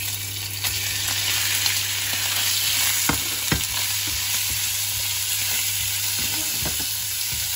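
Sliced beef sizzling as it goes into hot oil with fried garlic and onion in a non-stick frying pan and is stirred with wooden chopsticks: a loud, steady frying hiss that jumps up as the meat hits the pan. A couple of sharp knocks about three seconds in.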